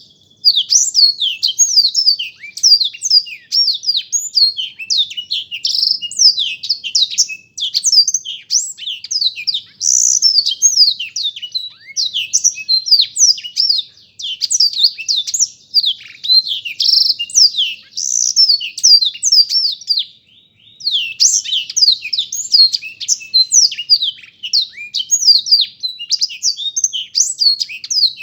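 Black-throated canary (blackthroat) singing a long, fast song of rapid, high, sharply falling notes, in phrases broken by a few short pauses.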